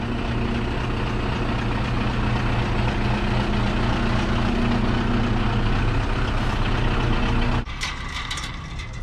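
Large house truck's engine running steadily as the truck rolls slowly past at close range. About three-quarters of the way through, the engine sound drops away suddenly, and a few sharp clicks and rattles of a metal chain-link gate being handled follow.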